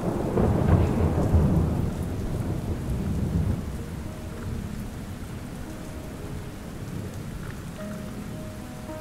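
Steady rainfall with a roll of thunder rumbling through the first three or four seconds and then fading, leaving the rain alone.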